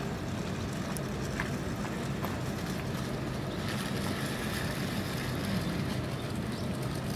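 Steady low background rumble, with a few faint ticks about a second in and again near two seconds.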